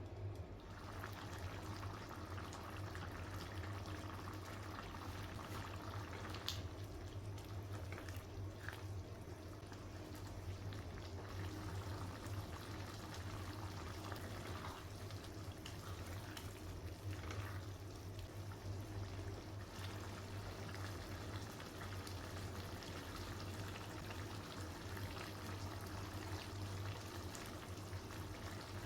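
Liquid simmering in a cooking pan, a soft steady bubbling over a constant low hum.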